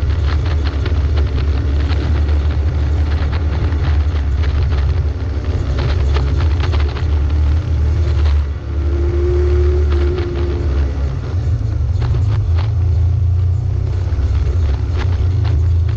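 Off-road vehicle driving slowly up a rocky dirt trail: a steady low engine and drivetrain rumble, with frequent clicks and knocks from stones under the tyres and the vehicle rattling over the rough ground.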